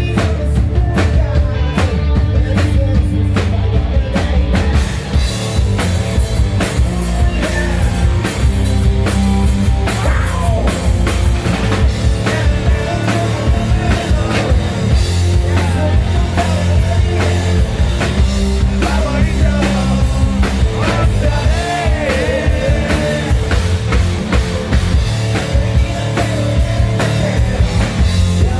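Live melodic hard rock band playing loud: drum kit, bass and electric guitars, with a sung vocal line over them.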